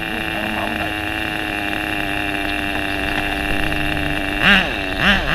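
Tamiya TG10 Mk.1 RC car's glow-fuel nitro engine idling with a steady drone. From about four and a half seconds in it is revved in quick blips that rise and fall in pitch.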